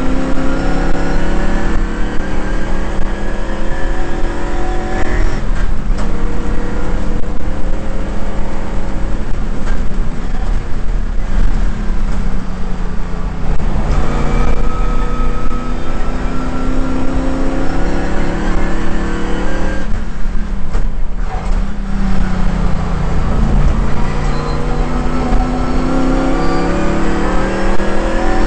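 Shelby GT350's V8 engine under hard acceleration on track, heard from inside the car. The engine note climbs repeatedly, broken by short drops at gear changes and by a longer lift-off about twenty seconds in before it climbs again.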